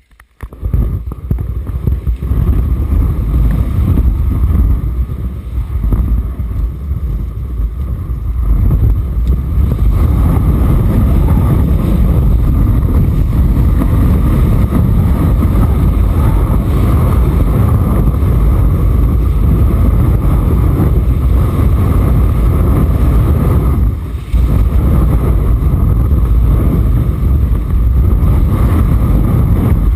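Wind rumbling on the microphone of a moving skier's camera, mixed with the hiss and scrape of skis running on snow. It starts suddenly as the skier sets off and keeps up steadily, dipping briefly once near the end.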